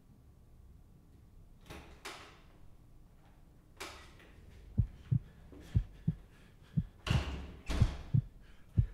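Heartbeat sound effect: low thuds in lub-dub pairs about a second apart, starting about five seconds in, mixed with several airy swishes.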